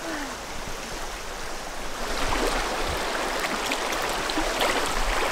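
Fast-flowing river water rushing over rocks, growing louder about two seconds in, with small splashes.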